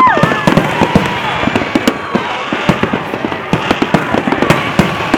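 Many fireworks going off at once: a dense, irregular stream of bangs and crackling pops. A held high tone breaks off right at the start.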